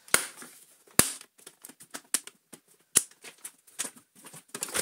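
Hard plastic casing of an Electrolux Turbomatic Z380 vacuum cleaner being handled and pulled apart: a run of light clicks and ticks with three sharper knocks, near the start, about a second in and about three seconds in.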